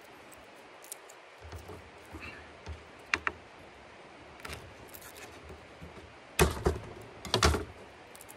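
Knife-and-board knocks while garlic cloves are peeled and crushed: scattered small taps and clicks, then two loud thunks about a second apart near the end.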